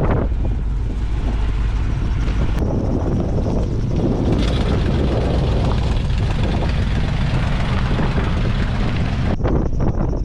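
Pickup truck running, a steady low rumble of engine and road noise.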